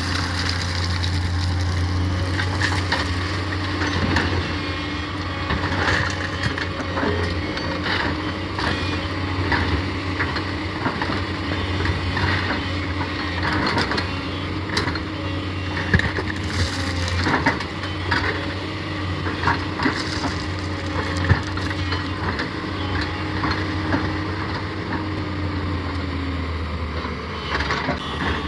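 Tata Hitachi 210 excavator's diesel engine running steadily while it digs and loads murum (gravelly soil), with scraping, cracking and clattering knocks of earth and stones throughout.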